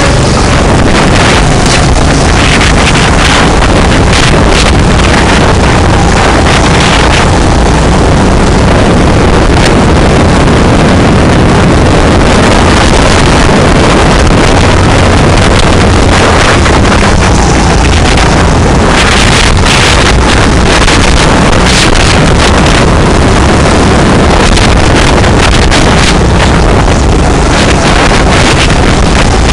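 Go-kart engine running continuously at racing speed, heard from on board the kart, loud and steady, with wind buffeting the microphone.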